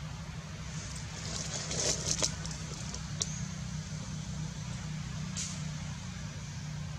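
Steady low outdoor rumble, with a short burst of crackly rustling about two seconds in and two brief sharp clicks, one near the middle and one later.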